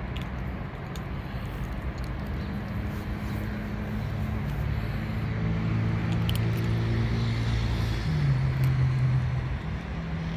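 A motor engine drones in the background, growing louder and then dropping in pitch about eight seconds in before easing off.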